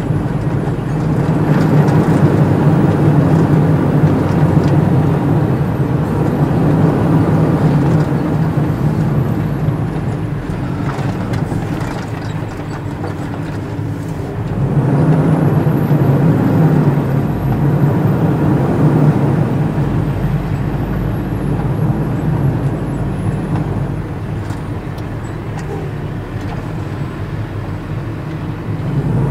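Heavy truck's diesel engine running as the truck drives, heard from inside the cab. It grows louder about two seconds in and again about fifteen seconds in, easing off in between.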